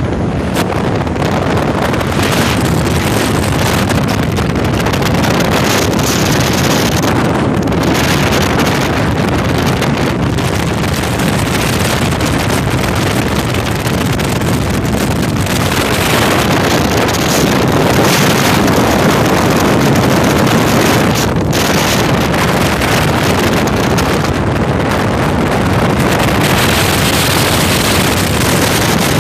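Bass boat running at speed across open water: a steady, loud rush of wind over the microphone mixed with outboard engine and water noise.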